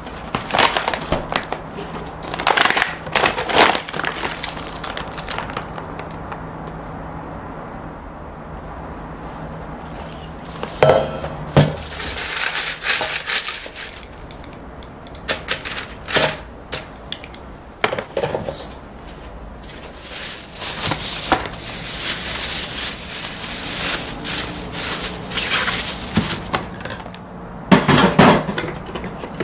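Plastic packaging around frozen breaded pork cutlets crinkling and rustling as it is opened and handled, in repeated bursts, with a few light clicks of tongs and a plastic tray. A longer stretch of steady rustling comes in the last third.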